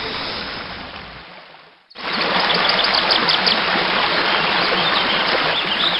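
Running water of a rocky stream with small waterfalls: a steady rush that fades out to a brief silence, then comes back in about two seconds in. A few short high chirps sound over the water just after it returns.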